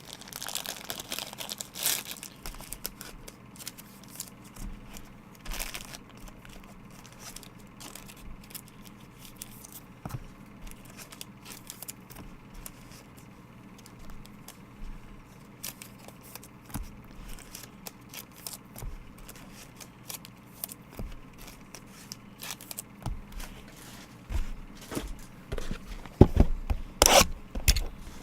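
Card packs being torn open and their wrappers crinkled, with cards handled between tears: scattered light clicks and rustles, and louder tearing near the start and again near the end.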